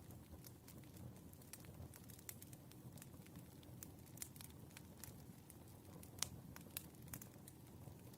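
Burning firewood crackling faintly, with irregular sharp pops, the loudest a little after six seconds, over a low steady rumble of the fire.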